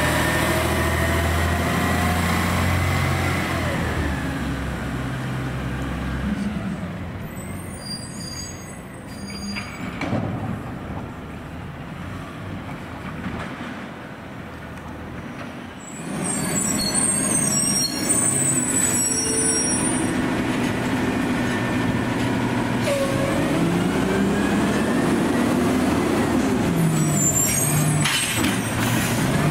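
Automated side-loader garbage truck working: its diesel engine runs, and rises and falls in pitch, with whining glides. There are two spells of high-pitched hiss and clatter, about a third of the way in and again past the middle.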